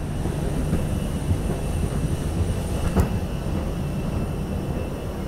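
Low steady rumble of walking along a jet bridge onto an airliner, with uneven low thuds and one sharp knock about three seconds in.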